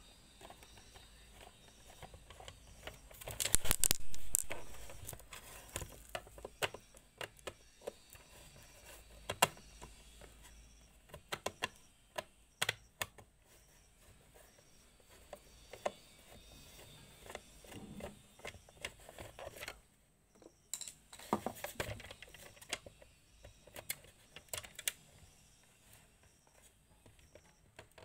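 Plastic clicks, knocks and light clatter from the housing and parts of a small electric appliance being handled and worked on by hand, loudest in a dense burst about three to four seconds in, then scattered sharp clicks.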